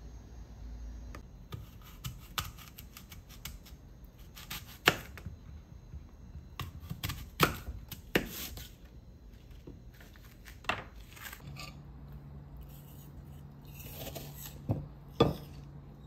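Kitchen knife slicing an apple on a plastic cutting board: irregular crisp cuts and sharp knocks of the blade against the board, with a few louder knocks. A faint low hum comes in about two-thirds of the way through.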